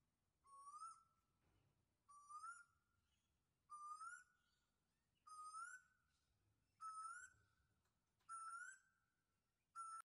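African grey parrot giving the same rising whistle over and over, about once every second and a half: six calls, with a seventh cut off at the end.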